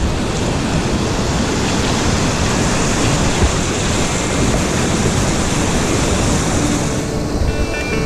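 Loud, steady rush of whitewater river rapids, with some wind on the microphone. A few held musical tones come in near the end.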